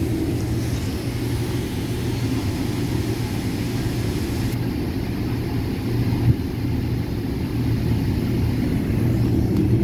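Steady low rumble inside the cabin of a Boeing 777-300 airliner: engine and air-system noise heard from a passenger seat, with one brief click about six seconds in.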